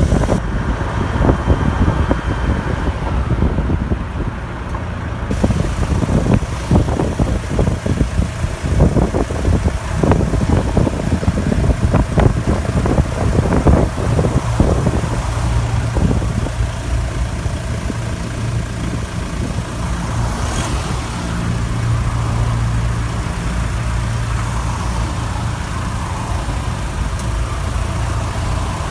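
Opel Frontera B 2.2 DTI four-cylinder turbodiesel running, with the strange squeak the owner hears mostly at idle and often when accelerating. The first half is rougher, with many short knocks, and the second half is smoother.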